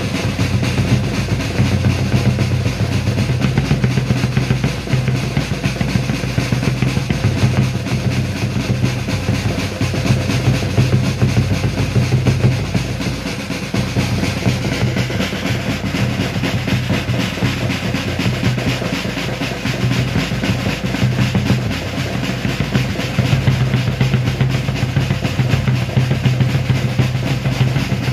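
Snare and bass drums playing a continuous drum roll, keeping time for a rhythmic rifle drill.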